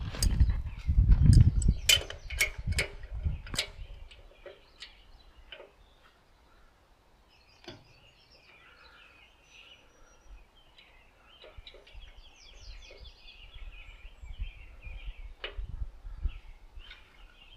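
Several sharp clinks and knocks from hand-tool work on a tractor loader's frame bolts over the first four seconds, then a quieter stretch with faint bird chirping and an occasional click.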